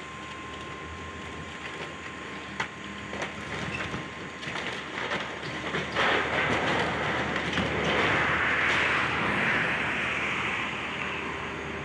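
Demolition excavator's diesel engine running with scattered clanks and knocks, then from about six seconds in a louder crunching and crumbling of building debris that eases off near the end.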